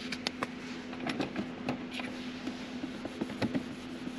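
Crinkling and small clicks of a paper alcohol-wipe packet being torn open and handled, then a wipe rubbing on the plastic console trim. A faint steady hum runs underneath.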